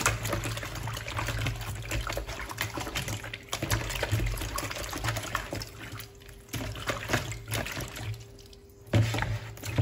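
Water sloshing and splashing in a plastic basin as hands scrub raw pork pieces, with a brief lull near the end.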